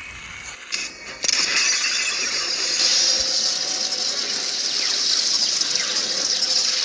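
Designed film sound effect for a magical talisman device: a couple of sharp clicks, then about a second in a loud, steady hiss with a high shimmering whine sets in and carries on.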